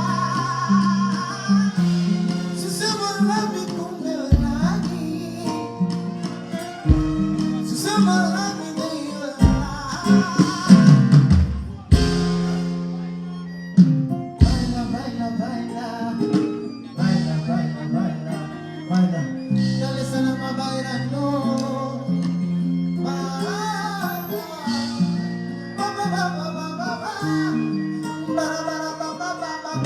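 Loud music through a PA system: a Bongo Flava song with a plucked-guitar line, a bass line, deep bass hits every few seconds and a sung melody.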